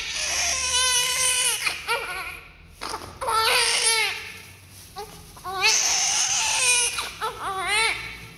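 Newborn baby crying: three long high-pitched cries with short pauses for breath between, then a run of shorter cries near the end.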